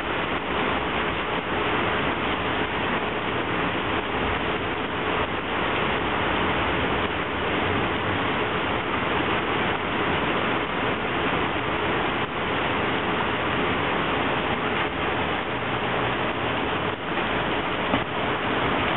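Heavy rain falling on a flooded street, a steady even hiss of water splashing on the wet road.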